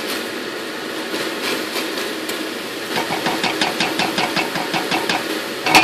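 Silicone spatula stirring and scraping a thick tomato-onion masala in a stainless steel saucepan, over a steady background noise. From about three seconds in come quick, even scrapes and taps, about five a second, and a sharper knock near the end. The masala is cooking down as its last moisture comes out.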